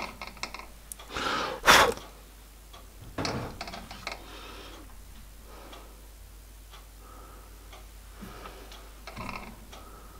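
Scattered light metallic clicks and knocks from work on a stopped metal lathe, with one sharp click a little under two seconds in.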